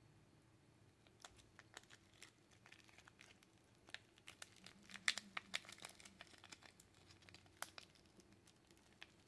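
Thin clear plastic wrap crinkling and crackling as it is worked off a wristwatch by hand. A quick, irregular run of sharp crackles starts about a second in and is densest around the middle.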